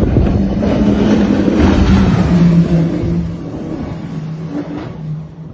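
High-speed police powerboat's engines running hard at speed, with a steady hum over rushing wind and water noise; the sound falls away over the last two seconds or so.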